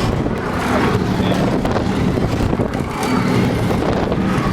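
Scrambler-type spinning amusement ride in motion: a loud, steady rumble of the running ride with rushing air on the microphone.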